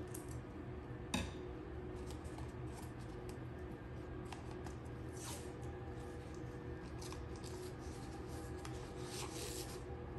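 Scissors snip through blue painter's tape with one sharp click about a second in, followed by scattered crinkling and rustling as a paper envelope and strips of tape are handled and pressed on.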